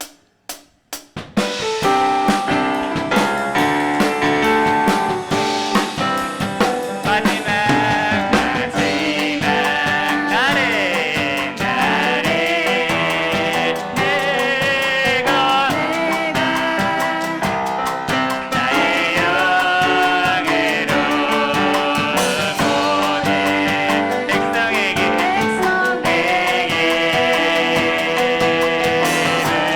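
A live church worship band of piano, drum kit and singers playing a praise song. A few sharp clicks are followed by the full band coming in about a second in.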